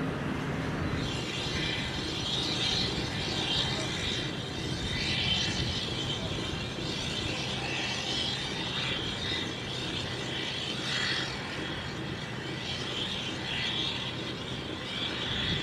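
Outdoor background: a steady low rumble, with higher-pitched chirping sounds coming and going over it.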